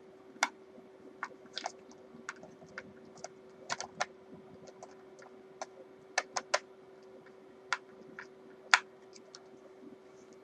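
Irregular small clicks and taps of a screwdriver and small metal parts as the last screw of the guitar kit is driven in by hand, over a faint steady hum.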